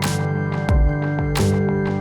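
Background electronic music: held synth notes over a steady drum beat, a hit about every 0.7 seconds.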